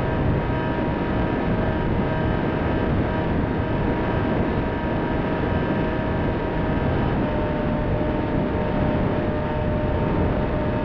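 Onboard audio of a Bixler FPV model plane in flight: steady rushing wind on the camera microphone with the electric motor's steady whine over it. The whine drops a little in pitch about seven seconds in.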